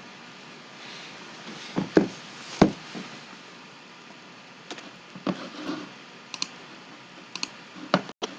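Irregular clicks and light knocks from a computer keyboard and mouse at a desk, about ten of them, the loudest two a little after two seconds in, over a low steady hiss.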